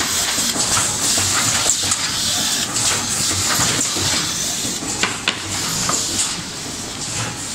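Rigid box making machine running: a steady high hiss with scattered sharp clicks and clacks from its mechanism, two plain ones about five seconds in.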